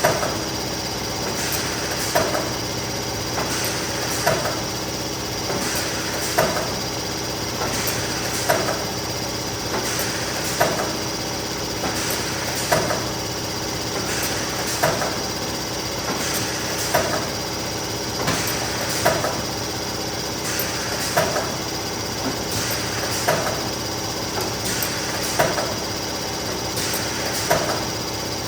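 Neoram 540 hot laminating machine running with a steady mechanical hum, overlaid by a short sharp knock that repeats regularly about every two seconds.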